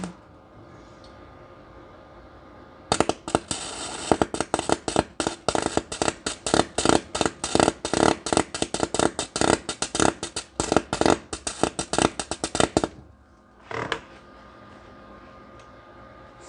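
MIG welder arc crackling: an uneven, fast run of sharp pops starts about three seconds in, goes on for about ten seconds and cuts off abruptly. A short second burst follows about a second later. A faint steady hum runs underneath.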